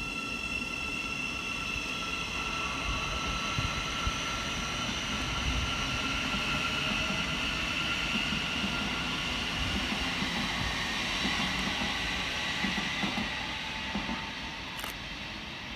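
Class 717 electric multiple unit pulling out of the station, its traction motors giving a steady whine of several tones over a low rumble, fading toward the end.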